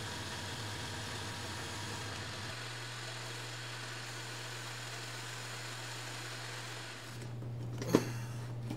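Metal lathe running steadily with a low hum, turning a small cast iron blank on a mandrel. Near the end the sound changes and there is a single short clink.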